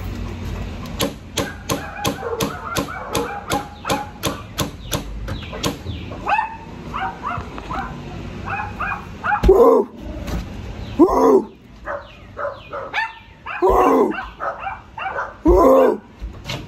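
A dog barking: a few whining yips, then four loud barks spaced a second or two apart in the second half. Before that, a quick, even ticking of about three clicks a second.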